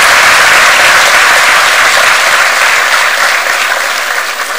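Large audience applauding, a dense, steady clapping that begins to thin and fade about three seconds in.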